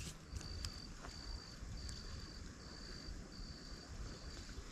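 An insect trilling outdoors: short, high, even trills repeating about every three-quarters of a second over a low background rumble.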